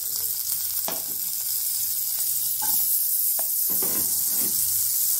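Butter sizzling in a steel kadhai as chopped red onion is tipped in, with a few sharp knocks and clatters as the pieces land, and the sizzle getting a little louder once the onion is in.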